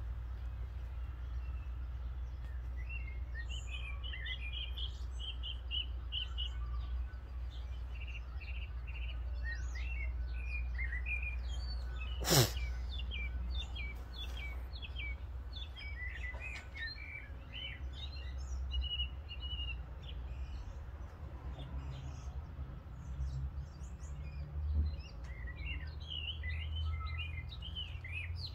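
Birds chirping in short, quick notes over a steady low rumble, with one loud, sharp click about twelve seconds in.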